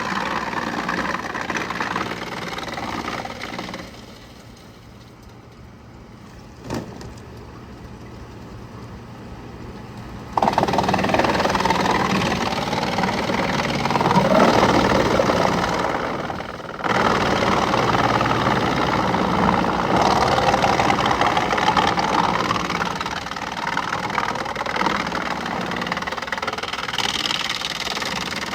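Wood-processing machinery running with a steady engine hum. It drops quieter for several seconds, with a single click, then comes back louder about ten seconds in, its pitch rising and falling as it works.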